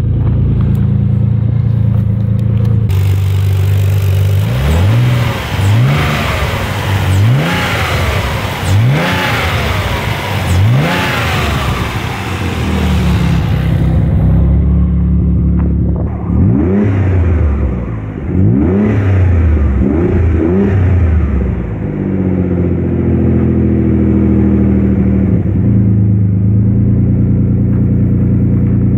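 Freshly rebuilt Nissan VG30 twin-turbo V6 in a 300ZX running, with a series of short throttle blips about four seconds in and four more blips just past halfway, each rev rising and dropping back, then settling to a steady idle. A loud rushing hiss runs over the first half.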